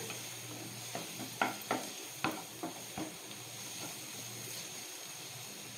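Chopped capsicum and onion sizzling in oil in a nonstick pan while a spatula stirs them. The spatula scrapes and taps against the pan several times, mostly in the first three seconds.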